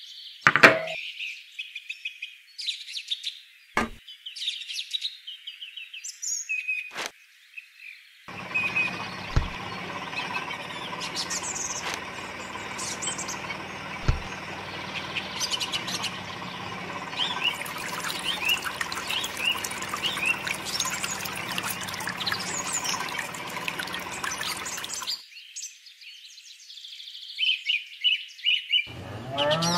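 Birds chirping throughout. From about eight seconds in, the small electric motor of a miniature carrot juicer runs steadily for about seventeen seconds as it crushes carrots, with two low knocks as carrots drop in, then stops.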